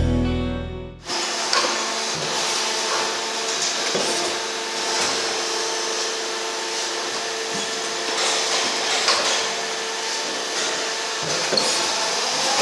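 Battenfeld plastic injection moulding machine running: a steady machine hum and whir with a few sharp clunks now and then.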